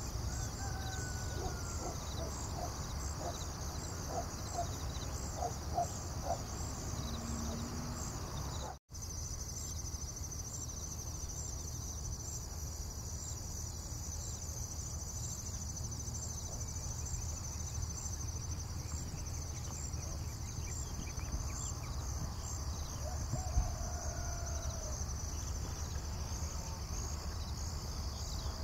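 Outdoor ambience of insects trilling steadily in a high, finely pulsing band, over a low rumble, with a few short bird calls near the start and again past the middle. The sound drops out for an instant about nine seconds in.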